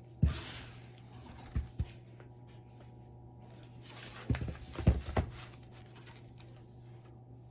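A paper picture book being handled: a page turns with a swish about a quarter second in, followed by a few soft knocks and a cluster of taps around the middle, over a steady low hum.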